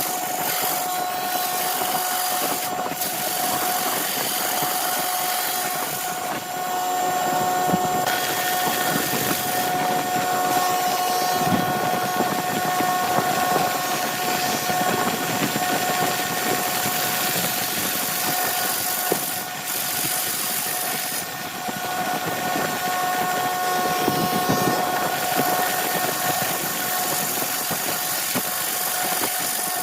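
Woodworking lathe running with a steady whine, under a continuous hiss of the spinning epoxy-resin blank being worked.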